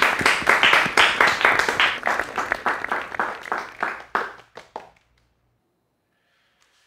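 A small audience clapping, the applause thinning out and stopping about five seconds in.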